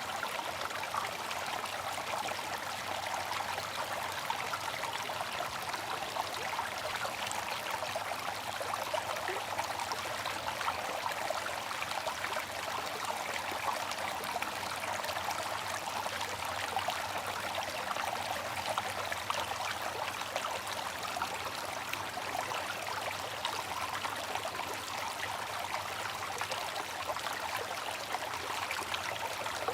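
Bamboo water fountain: water trickling and splashing steadily, in many small splashes with no deep rumble.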